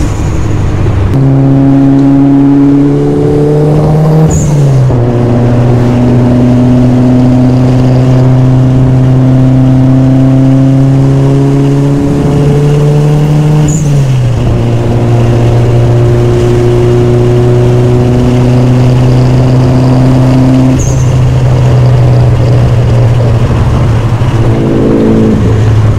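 Mitsubishi Lancer Evolution IX MR's turbocharged 4G63 four-cylinder engine accelerating under way. Its pitch climbs through each gear and drops sharply at two upshifts, about four and fourteen seconds in, with a brief dip and recovery near the end. The owner says it is running fine after a new VVT solenoid cleared its P0011 fault.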